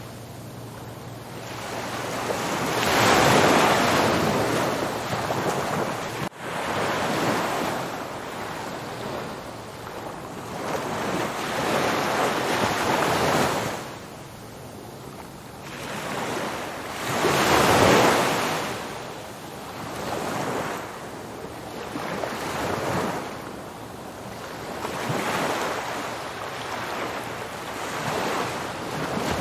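Ocean waves breaking on a beach, the surf swelling and washing back in repeated surges, two of them clearly louder than the rest, with wind noise on the microphone.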